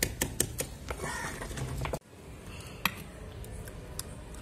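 Garlic being pounded in a small stone mortar: a few quick knocks, about five a second, then a crushing, grinding stretch. After a sudden drop about two seconds in, only a few faint taps of the stone mortar against a steel plate as the paste is pushed out.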